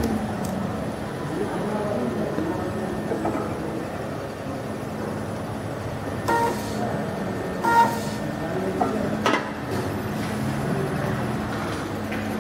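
Conveyor labeling machine running with a steady motor hum. Two short horn-like tones sound about a second and a half apart in the middle, followed by a sharp click.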